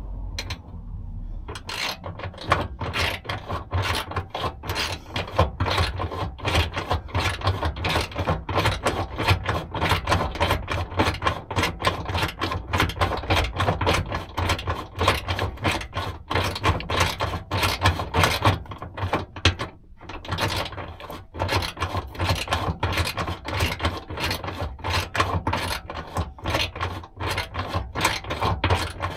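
Land Rover LR3/LR4 spare-tire hoist being hand-cranked, its cable reel winding the spare up: a rapid, uneven run of mechanical clicking and rasping, with a brief pause about twenty seconds in.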